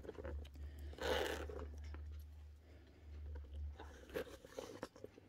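Leather crossbody handbag being handled and opened: scattered small clicks, crinkles and rustles, with a louder rustle about a second in, over a low steady hum.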